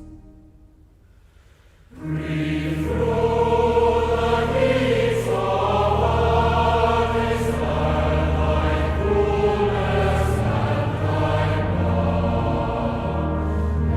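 Music: a choir singing over sustained low chords, starting about two seconds in after a brief quiet gap.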